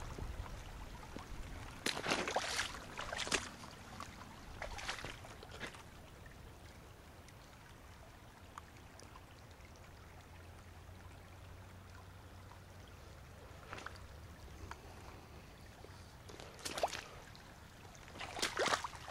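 Footsteps in dry fallen leaves, a few steps about two seconds in and again near the end, with a small creek running steadily in between.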